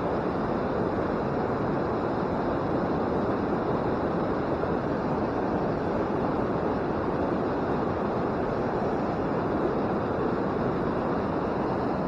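Steady rush of water pouring over a small creek waterfall, an even, unbroken roar of falling water.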